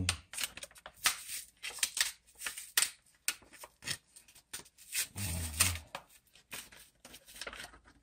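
Plastic packaging being handled and torn open around a tube of silicone grease: a string of irregular sharp crackles and rips. A person makes a brief voice sound about five seconds in.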